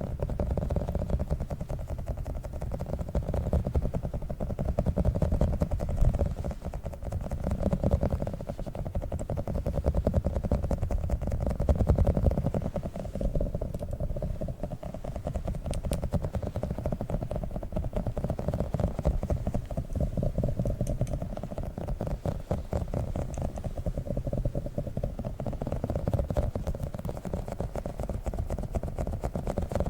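A tiny squishy octopus toy squeezed and kneaded close to the microphone: continuous soft squishing with fine crackles and a deep, close-up rumble.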